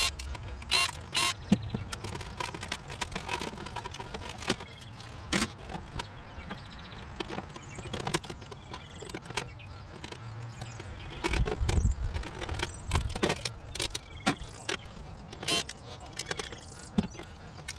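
Scrap metal clanking and rattling as pieces are handled and loaded: irregular sharp metallic clinks and knocks over a low rumble.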